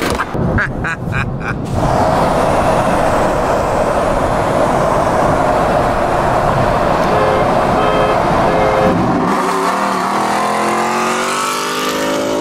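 A few knocks as a fuel nozzle is hung back on the pump, then steady road and wind noise of a car at highway speed. In the last few seconds an engine note climbs steadily as a vehicle accelerates.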